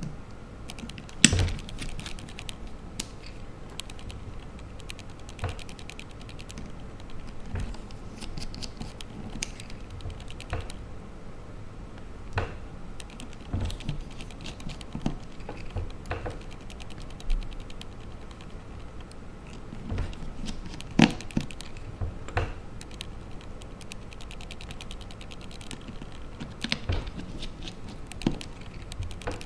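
Small clicks and taps of a mini screwdriver working tiny screws back into an iPhone 3GS, metal on metal against the screws and the phone's frame, with a few louder knocks.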